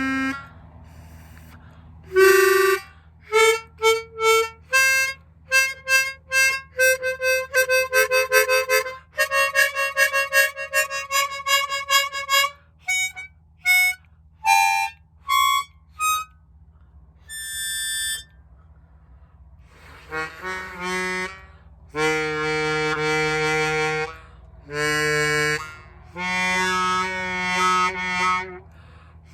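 Accordion free reeds of a Paolo Soprani chromatic accordion sounding: a quick run of short, separate notes, then longer held notes and chords in the second half.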